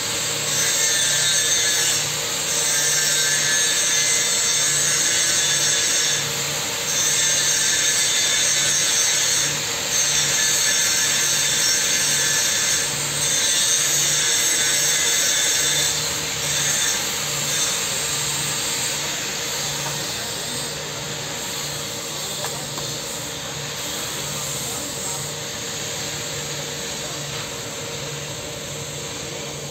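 A tool working in passes of two to three seconds with brief breaks between them, turning quieter and more even in the second half.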